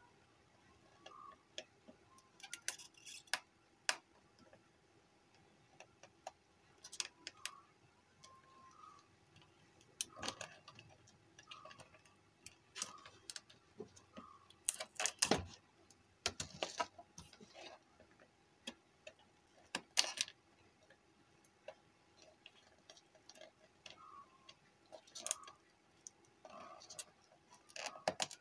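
Irregular small clicks, ticks and scrapes of a screwdriver and hands working on a home theatre amplifier circuit board, a few of them sharper.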